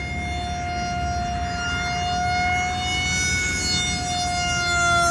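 Whine of a foam-board RC F-18 model's electric motor and propeller in flight, one steady pitched tone that slowly rises and falls as the plane passes overhead.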